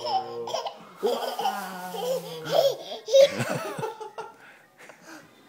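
Toddler laughing and giggling, trailing off after about four seconds.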